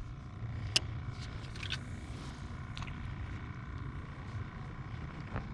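Electric trolling motor running, a steady low hum with a faint high whine; a single sharp click a little under a second in.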